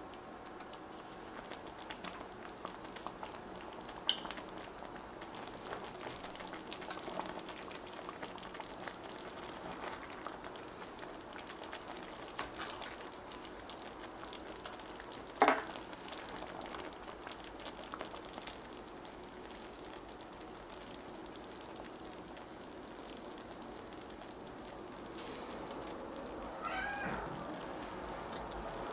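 Thick butternut squash sauce simmering around meatballs in an enameled cast-iron braiser, with small bubbles popping and ticking steadily. One sharp click about halfway through, and a short pitched sound that rises and falls near the end.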